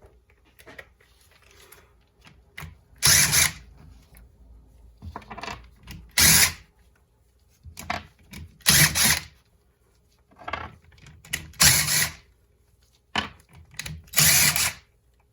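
Cordless power tool run in about five short bursts, spinning off the cylinder head nuts of a Honda CR250 two-stroke engine.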